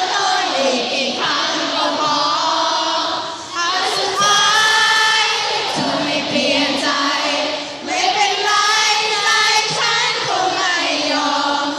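Live singing at a pop concert: a male singer on a microphone through the PA, with many audience voices singing along. Long held notes, with short dips between phrases.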